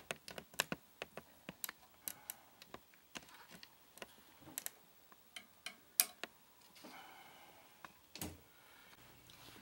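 Faint, irregular small clicks and ticks from restringing an electric guitar: the last steel string being handled and wound onto its tuner at the headstock. A sharper click comes about six seconds in.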